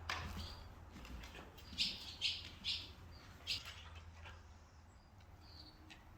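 Birds calling: a quick run of four short, sharp chirps starting about two seconds in, then a few fainter chirps. A single sharp click comes at the very start.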